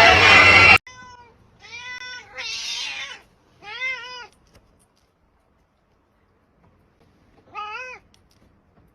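A domestic cat meowing in short calls: four meows in the first half with a rougher, noisier call among them, then after a pause one more meow near the end. Before them, loud mixed voices cut off suddenly under a second in.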